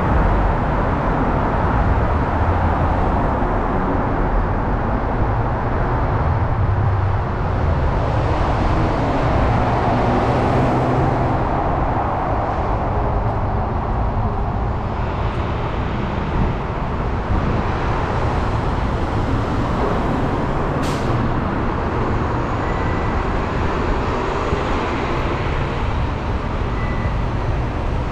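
Motor traffic passing on a busy city street: a steady rumble and tyre noise, with one brief sharp high sound about three-quarters of the way through.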